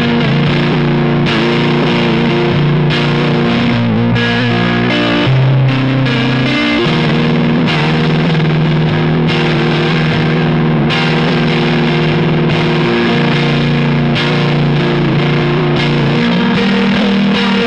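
Electric guitar played through a Fairfield Circuitry Shallow Water vibrato pedal: held chords with a warbling vibrato and a fuzzy edge, moving to a new chord every second or two.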